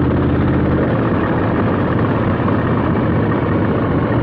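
2022 Harley-Davidson Low Rider S's 117 Milwaukee-Eight V-twin running steadily through a Two Brothers 2-into-1 exhaust.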